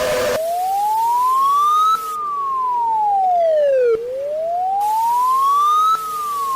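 Electronic wailing siren tone of an emergency alert alarm: one pure tone rising for about two seconds and falling for about two, over and over, above a steady lower tone. The tail of a deeper chord cuts off just at the start.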